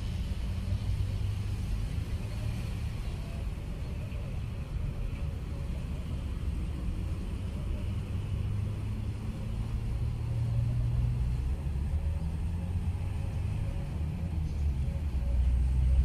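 Steady low outdoor rumble, a little louder near the end.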